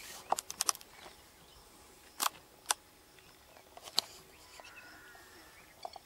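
Camera shutter clicks: a quick run of about four near the start, then single clicks spaced out over the next few seconds, over a faint outdoor background.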